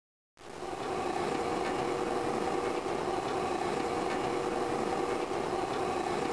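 Steady hum of mine machinery at a hoist station. It fades in just after the start and holds evenly, with a couple of steady tones over a low rumble.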